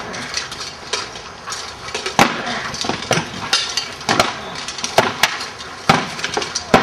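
Steel swords clashing against swords, shields and plate armour in a sparring bout. About ten sharp metallic clangs and knocks come at irregular intervals.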